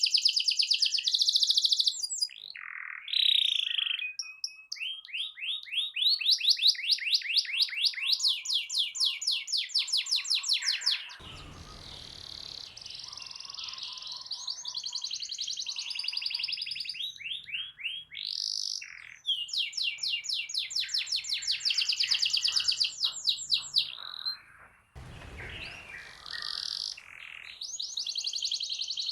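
Domestic canary singing a long, loud song made of fast rolling trills: runs of rapid repeated notes that switch to a new trill every few seconds, with short breaks between phrases.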